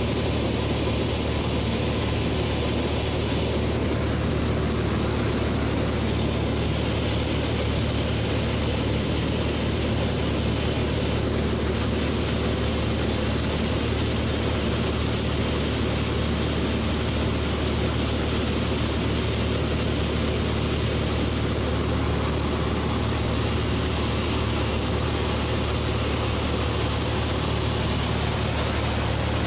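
1957 Cessna 182's six-cylinder Continental O-470 engine and propeller droning steadily in cruise flight, heard from inside the cabin with a constant rush of air noise.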